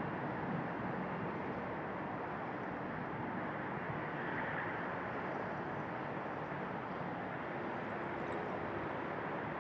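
Steady rushing airport background noise, with no distinct aircraft passing and no rise or fall in level.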